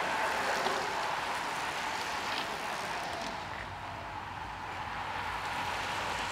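A group of road bicycles passing: a steady hiss of tyres on asphalt with a few faint clicks, easing off slightly about three seconds in.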